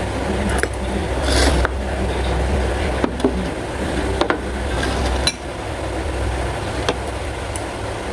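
Occasional light clinks of utensils against dishes, about half a dozen spread out, over a steady low hum.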